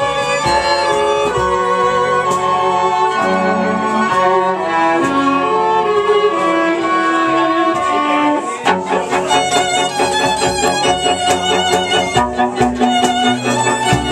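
A group of fiddles playing a tune together, with a cello underneath. About eight and a half seconds in, the long held notes give way to shorter, more rhythmic bowing.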